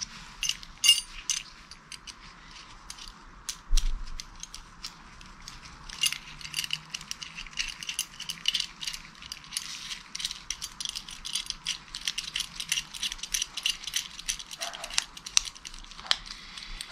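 Small steel parts clicking and rattling in gloved hands as a bolt is threaded by hand into a small metal mounting bracket. The clicks are few at first, with one louder knock a few seconds in, then come fast and close together through the middle of the clip.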